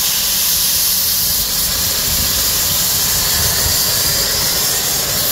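Steady, loud hiss of steam from a W. G. Bagnall saddle-tank steam locomotive, with steam venting from its open cylinder drain cocks.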